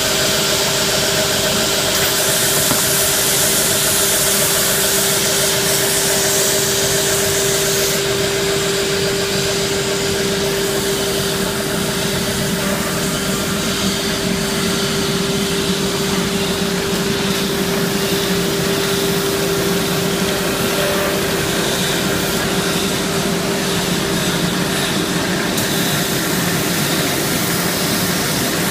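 Automatic belt-sanding line for wooden chair parts running: a steady machine drone with one constant hum-like tone under a broad hiss from the abrasive belts and rollers. The hiss steps up or down a few times.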